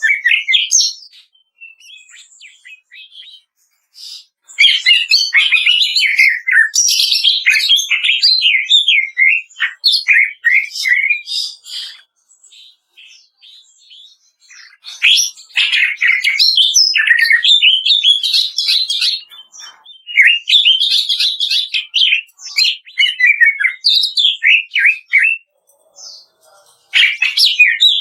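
Green leafbird (cucak ijo) singing in long bursts of rapid, varied chattering notes, the crackling 'kretekan' style, with short quieter pauses between bursts.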